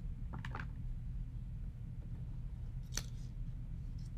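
Cut paper collage pieces being handled and pressed down by hand: soft rustles about half a second in and a light tap about three seconds in, over a low steady hum.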